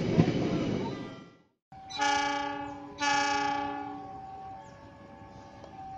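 A passing train's carriages rumble and clatter on the track, fading out about a second and a half in. Then a distant approaching CC206 diesel locomotive sounds two horn blasts about a second apart, the second dying away slowly; this is the semboyan 35 horn signal.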